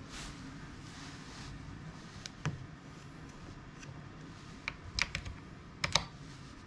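Sharp clicks of the push-button light switches and knob on a hotel bedside control panel being worked by hand, in a few small groups, the loudest near the end.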